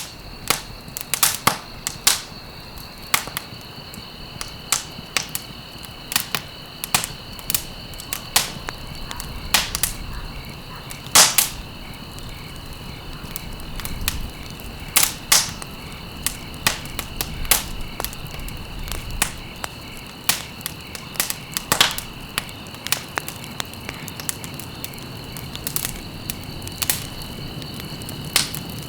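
Campfire crackling, with sharp irregular pops of burning wood, over a steady high trill of insects.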